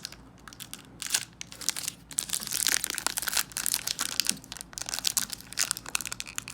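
Plastic wrapper of a Topps 2021 baseball card pack crinkling and tearing as it is ripped open. The dense crackle starts about a second in.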